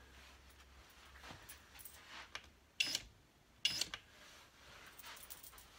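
Quiet handling noises as metal polish is worked by hand onto a buffing mop on a stationary drill, with two short, louder rasping sounds about three seconds in and just under a second later.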